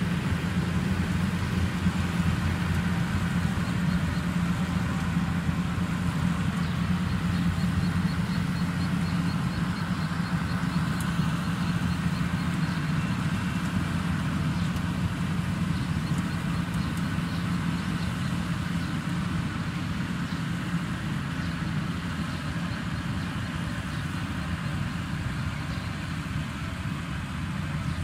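Yanmar YH850 combine harvester's diesel engine running steadily as it harvests rice, a constant low hum that fades slightly as the machine moves away.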